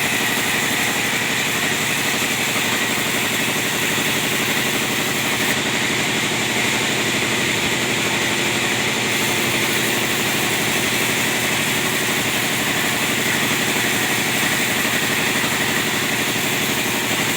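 Petrol chainsaw running steadily at high speed, cutting timber.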